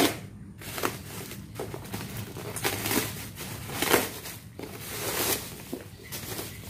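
Bubble-wrap plastic crinkling and rustling as it is pulled off a taped cardboard box, in an irregular run of rustles, loudest right at the start and about four seconds in.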